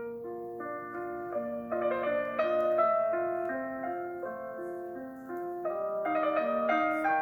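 A Samsung Galaxy S21 Ultra stock ringtone starting up: a bright keyboard melody over a bouncing pattern of alternating low notes, several notes a second.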